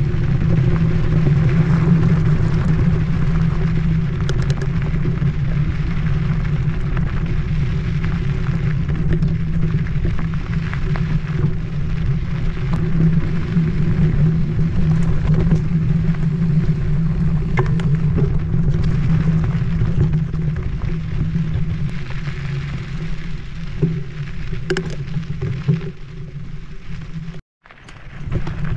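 Wind rushing over a chest-mounted camera's microphone while a mountain bike rolls over a dirt trail, with scattered clicks and knocks from the bike over bumps. The sound cuts out for a moment near the end.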